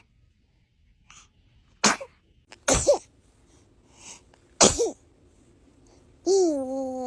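A baby sneezing three times, short sharp sneezes about a second apart, the later two ending in a tiny squeak. Near the end a drawn-out voice sound, slightly falling in pitch.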